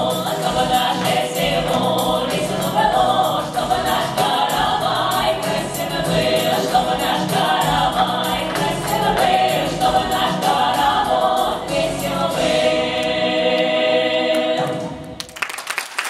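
Women's folk choir singing a Russian folk song in unison over a steady rhythmic accompaniment, finishing on a long held chord. Applause breaks out just before the end.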